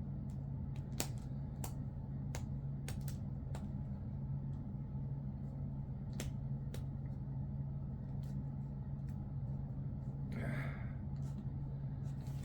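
Comic books in plastic bags and backing boards being handled and sorted: scattered small clicks and taps, with a short plastic rustle about ten seconds in, over a steady low hum.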